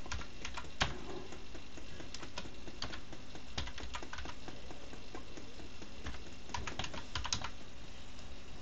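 Typing on a computer keyboard: single keystrokes in short, irregular runs, with a quicker flurry of clicks near the end, as a terminal command is typed in.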